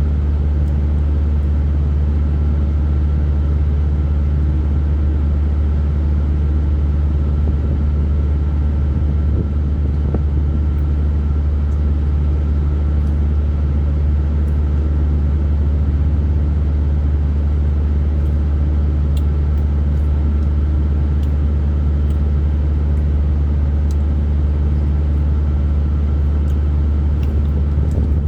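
Steady low hum with a faint thin tone above it that never changes, and a few faint ticks scattered through it.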